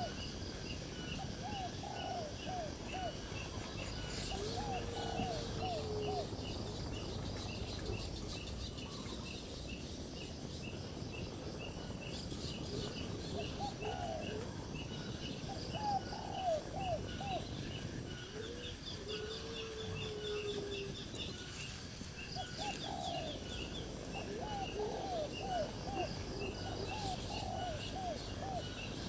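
Birds calling outdoors: recurring groups of three to five short falling notes, twice with a longer held lower note, over a steady rapid high-pitched insect ticking.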